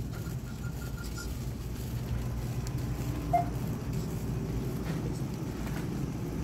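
Shopping cart wheels rumbling steadily over the store floor as the cart is pushed along. A faint row of short beeps sounds in the first second, and a single brief beep about three and a half seconds in.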